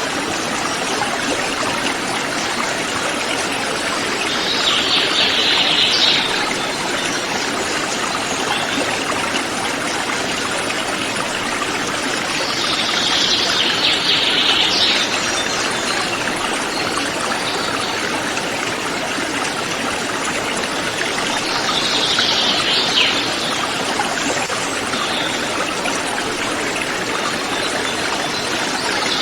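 Mountain river flowing steadily, an even rush of water. Four times, roughly every eight seconds, a higher-pitched call lasting a second or two rises over the water.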